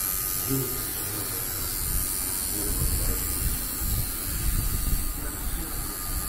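Coil tattoo machine buzzing steadily as its needle works into the skin of the upper arm.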